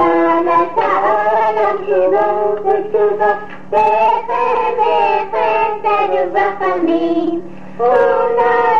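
A child's voice singing a melody in held notes on an old home reel-to-reel tape recording. A steady low hum runs underneath. There are two short breaks, at about four seconds and again near the end.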